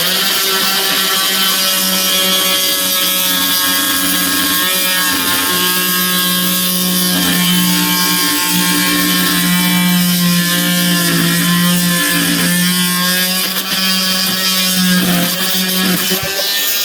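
Corded Warrior 2 Amp oscillating multi-tool running at one steady speed with a loud buzz, then switched off about sixteen seconds in.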